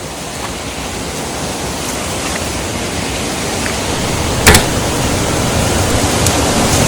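Steady rushing water of a small waterfall, growing gradually louder, with one sharp knock about four and a half seconds in.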